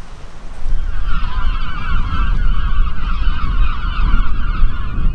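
A flock of birds calling together in a dense, continuous chorus that starts about a second in, over wind rumbling on the microphone.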